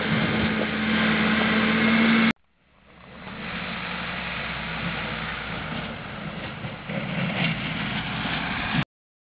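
Volvo BM L90 wheel loader's diesel engine running, with a steady hum at first. The sound cuts out about two seconds in, fades back in to the engine running, and cuts off abruptly near the end.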